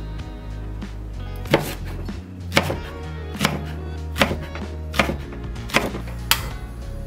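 Kitchen knife chopping a green onion on a plastic cutting board: about seven sharp, evenly paced chops starting a second and a half in, over background music.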